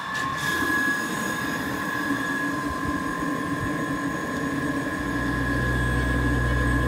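A project rig's motor, fed by an inlet pipe, switches on and runs with a steady two-tone whine over a lower hum. A deeper rumble joins about five seconds in.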